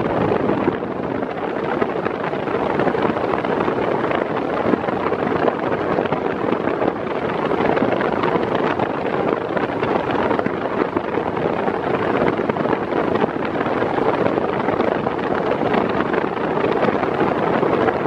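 Arno Silence Force VF40 table fan running at top speed. Its airflow rushes steadily and evenly over the microphone close in front of the grille.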